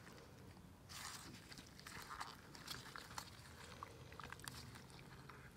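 Faint wet clicks and squelches of gloved hands handling the organs inside a dead piglet's opened body cavity during a necropsy.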